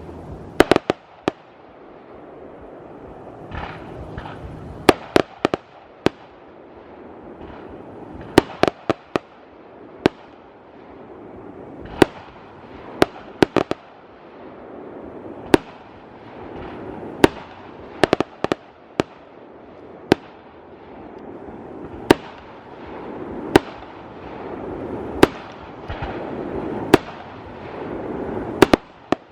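Aerial fireworks shells bursting with sharp, loud bangs every second or two, some in quick doubles and clusters, over a rushing noise that swells and fades between the bursts.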